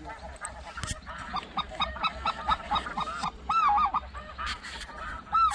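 A flock of snow geese calling together: rapid, overlapping high-pitched honks repeated many times a second, with a few louder, closer calls about halfway through and again near the end.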